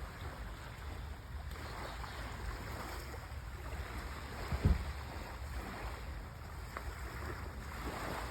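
Sea waves washing against the shore with wind rumbling on the microphone, and one brief low thump about halfway through.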